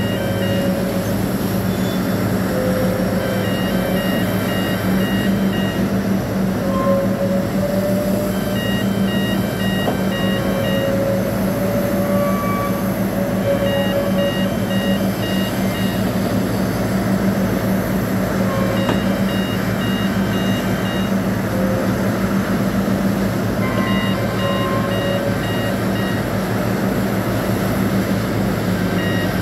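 Sany SCC6000A crawler crane running steadily with a low engine hum. A high warning beeper sounds in short runs of rapid beeps, each run about two seconds long and repeating about every five seconds.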